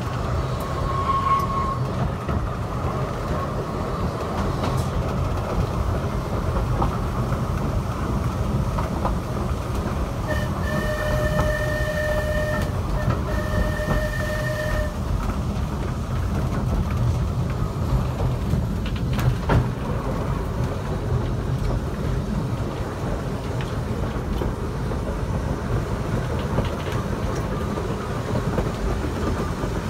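Manx Electric Railway tram running with a steady rumble of wheels on rail, tooting its warning horn twice, two long toots close together, about ten seconds in.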